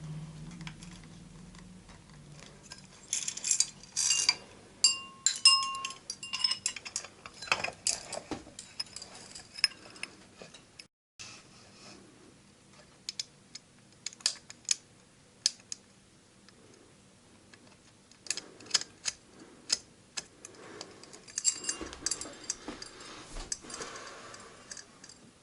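Irregular clicks, taps and light metallic clinks of hands working on a ceiling fan fixture, handling its wiring and housing parts, with a few brief ringing clinks about five seconds in.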